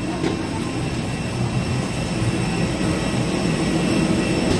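Steady low mechanical drone of a parked airliner's running machinery, a rush of air noise with faint steady hum tones in it.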